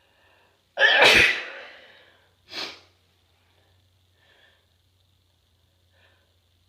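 A person sneezing once, loud and sudden, trailing off over about a second and a half. A shorter, quieter burst of breath follows about a second later, then a few faint small sounds.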